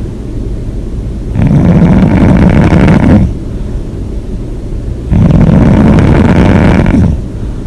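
A person snoring loudly with a regular rhythm: two long, rough snores, each lasting about two seconds, with quieter breathing between them.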